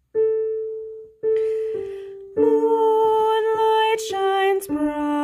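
Piano playing single notes of the soprano line, each fading after it is struck. About two and a half seconds in, a sustained two-note sound joins at a steady level, which is most likely a woman singing the soprano melody over the piano.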